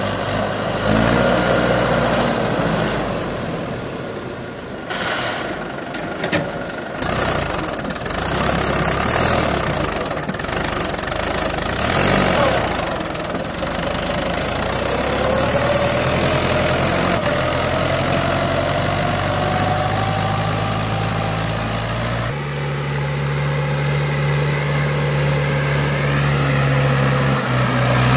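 Mahindra 575 DI tractor's four-cylinder diesel engine running while hauling a trolley loaded with earth. About halfway through, the engine note rises slowly for several seconds, and about 22 s in the sound changes abruptly to a steadier, deeper hum.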